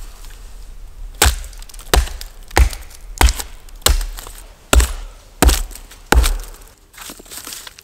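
Fiskars Norden N10 hatchet chopping into an old conifer stump: about eight sharp wood-on-steel blows, roughly one every 0.7 s, starting about a second in and stopping shortly before the end. The hatchet is being used like a plane to dress the sawn stump into a work rest.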